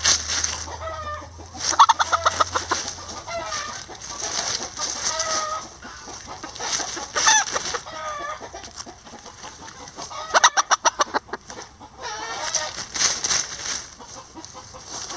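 Flock of bantam chickens, lavender Old English Game and mille fleur d'Uccle, clucking with short calls while foraging. Twice, about two seconds in and again past the middle, there is a quick rapid run of clucks.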